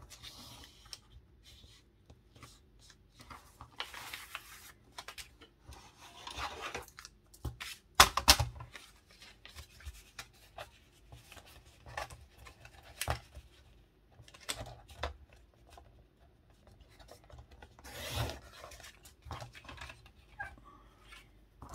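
Scissors cutting paper, in short irregular snips, with paper rustling as it is handled between cuts. A sharp click about eight seconds in is the loudest sound.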